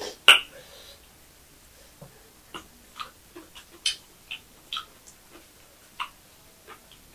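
Close-miked eating sounds: scattered wet mouth clicks and smacks from chewing, about one every half second. A loud sharp click comes just after the start, and a crisp bite into a cucumber slice about six seconds in.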